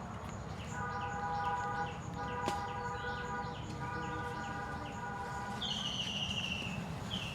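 Birds calling: short, falling chirps repeat about twice a second and grow louder over the last second and a half. Several drawn-out, even-pitched calls sound in the first five seconds.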